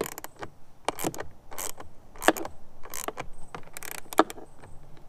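Small hand ratchet with a socket tightening a bolt: a series of short ratcheting clicks with each back-swing, irregularly spaced, snugging down the bolt that secures the speaker in its bracket.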